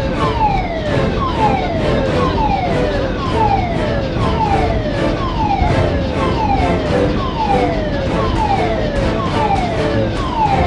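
Bucket-wheel excavator running: a low, steady rumble with a high metallic squeal that falls in pitch and repeats about every half second or so, in time with the rotation of the bucket wheel.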